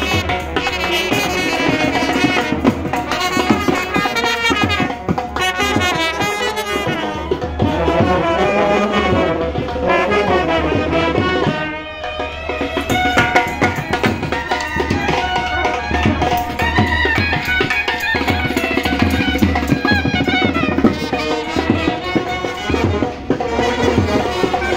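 Brass band playing live: trumpets and clarinets carrying a melody over drums, with a short break in the sound about halfway through.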